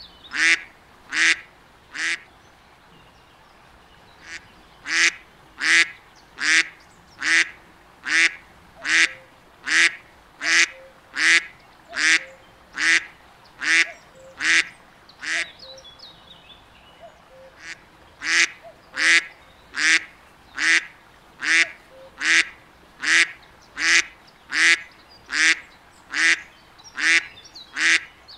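A duck quacking in long, evenly paced series, about four calls every three seconds, breaking off twice for a couple of seconds before starting again.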